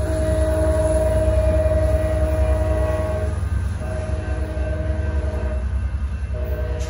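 Amtrak San Joaquin passenger train pulling away, sounding its horn in long blasts: one of about three seconds, a second of about two seconds, and a third starting near the end, over the steady low rumble of the train.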